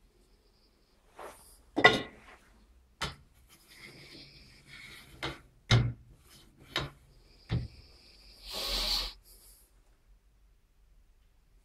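A string of irregular knocks and rubbing: about seven separate knocks, the sharpest about two seconds in, then a longer scraping rustle about nine seconds in.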